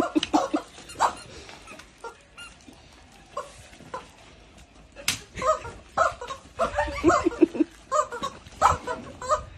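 Screaming rubber chickens letting out short squawks as they are squeezed, coming thick and fast in the second half, mixed with women's laughter and a few sharp smacks.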